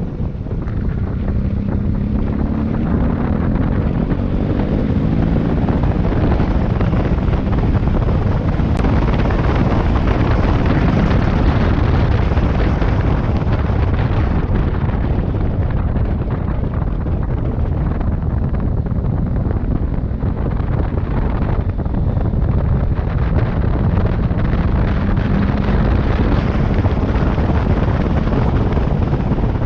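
Motorcycle engine running under way, largely buried under heavy wind buffeting on the microphone. The engine note rises in the first few seconds and again near the end.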